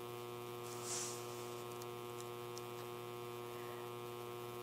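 Steady electrical mains hum, a buzzy stack of even tones over a light hiss, with a brief soft hiss about a second in.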